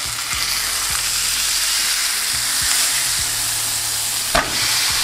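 Marinated chicken sizzling steadily on a hot, oiled, ridged cast-iron griddle pan, with a single sharp knock about four seconds in.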